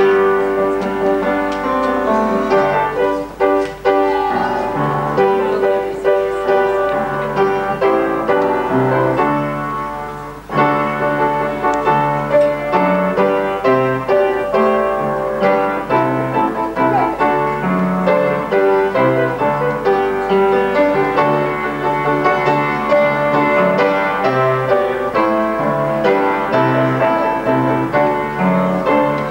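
Piano playing a wedding processional: a steady melody over a moving bass line, with a brief pause about ten seconds in.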